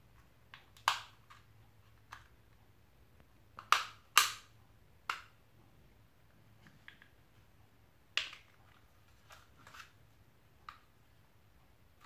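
Plastic housing of a power window master switch being prised open by hand: a scatter of sharp plastic clicks and snaps as its clips come apart, the loudest about one, four and eight seconds in.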